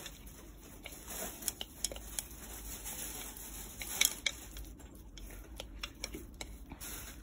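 Wooden chopsticks stirring chopped raw horse mackerel and herbs in a mixing bowl: light, irregular clicks and taps of the chopsticks against the bowl, the sharpest about four seconds in.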